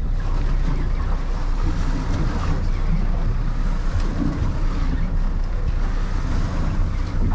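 Steady wind buffeting the microphone on a small fishing boat at sea, with waves washing against the hull and a constant low rumble.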